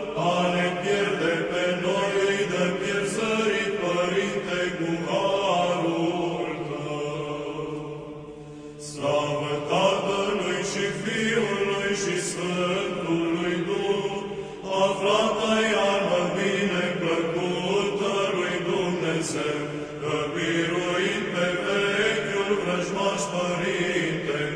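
Eastern Orthodox liturgical chanting in Romanian: a hymn from a prayer canon sung in a chant melody. A brief lull falls about eight seconds in.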